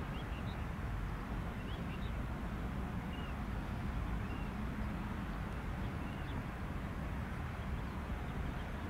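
Steady low outdoor rumble, with a few short, high bird chirps scattered through it.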